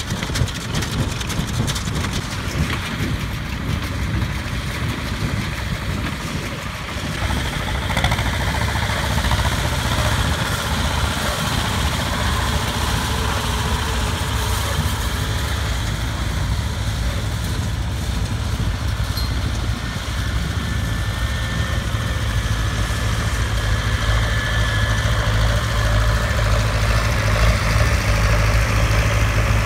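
Diesel farm tractors running steadily as they work a hayfield. From about two-thirds of the way in, a deeper engine hum grows louder as a tractor comes close.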